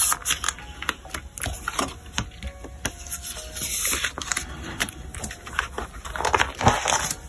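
Clear plastic binder sleeves rustling and crinkling as postcards are slid into their pockets, with many small irregular clicks and taps of card against plastic.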